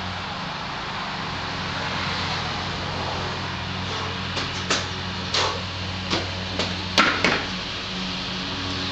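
Barbell loaded with iron plates knocking and clanking against a steel squat rack as a lifter grips it and lifts it out onto his back: a scatter of sharp knocks in the second half, the loudest near the end, over a steady low hum.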